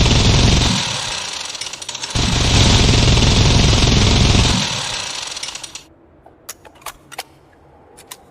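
Minigun firing in two long continuous bursts. The second burst starts about two seconds in, stops about halfway through, and trails off. A few sharp clicks follow near the end.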